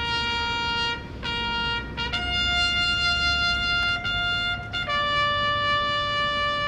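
Solo trumpet sounding a ceremonial military call of honour during a wreath-laying salute: slow, long-held notes, two on the same pitch and then two lower ones, the last held on.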